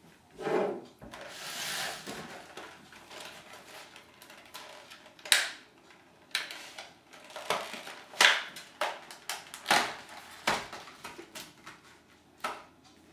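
Handling noises of containers on a kitchen counter: a dull thump, a brief rustle, then a dozen or so sharp clicks and knocks as a clear plastic container and a jar are picked up and set down.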